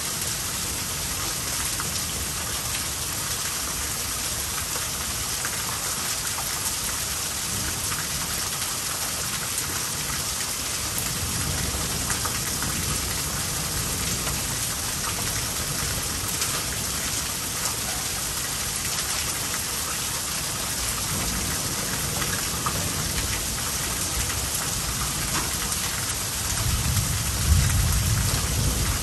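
Heavy thunderstorm rain pouring steadily, with thunder rumbling low a couple of times and a louder rumble of thunder near the end.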